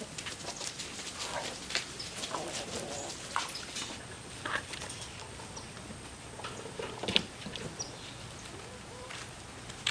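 Chickens clucking in short calls as they forage, with many small taps and rustles from pecking and scratching in dry leaves. A louder sharp sound comes about seven seconds in.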